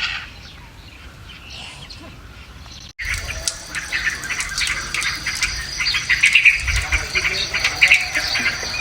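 Many small birds chirping and twittering. The chorus is sparse and faint at first, then cuts abruptly about three seconds in to a louder, busier chorus.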